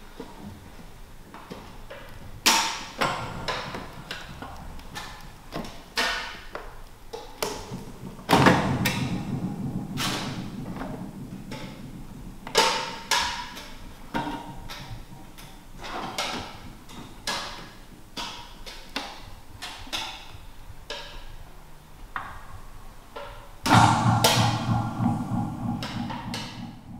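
Sound-art soundscape made from waste: irregular knocks, taps and clicks, with heavier hits about eight seconds in and near the end that ring on for a few seconds with a low resonance.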